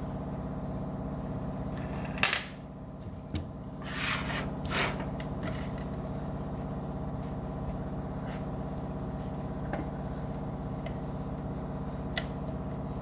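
Spark plug wires being fitted to a 1948 Buick Super Eight's engine. A sharp click a couple of seconds in, as a boot snaps home, is followed by rubbing and scraping of the wires and boots. A few light ticks follow, then another sharp click near the end, over a steady background hum.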